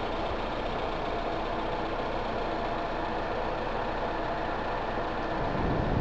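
Four-wheel-drive vehicle's engine running at a steady idle. About half a second before the end it gives way to wind buffeting the microphone.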